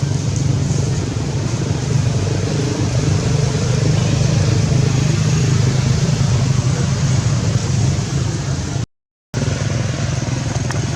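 Steady low engine drone, like a motor vehicle running close by, with no change in pitch. It cuts out completely for about half a second near the end.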